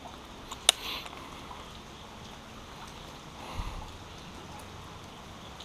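Steady creek ambience with a sharp click under a second in and a dull knock a few seconds later.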